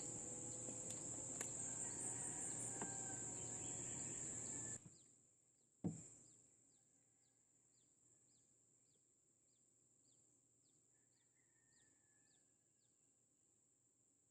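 Steady high-pitched drone of insects with a few bird chirps, which cuts off suddenly about five seconds in; a single knock follows about a second later, then near silence with faint, evenly spaced short chirps.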